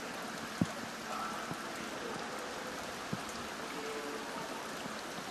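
Steady hiss of rain and running water, with a soft knock about half a second in and another about three seconds in.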